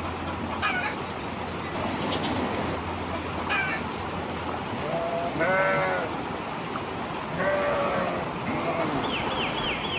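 Animal calls: two longer wavering cries, one about halfway through and another a couple of seconds later, with shorter calls early on and quick high chirps near the end.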